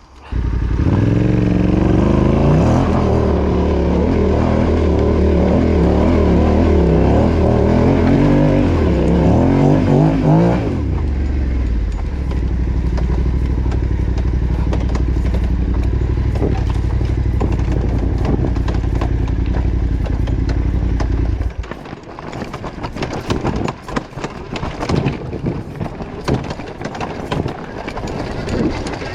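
Yamaha Ténéré 700's parallel-twin engine riding off-road. It revs up and down under throttle for about ten seconds, then holds a steady note. About 21 seconds in it drops away, leaving scattered knocks and clatter.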